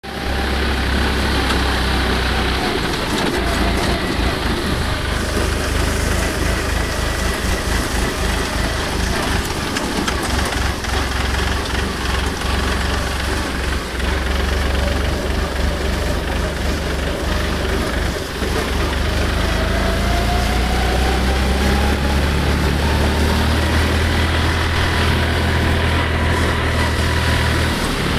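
OX 25 tractor engine running steadily while driving, with the wheels splashing through water on a muddy track. About two-thirds of the way in the engine note rises and grows louder.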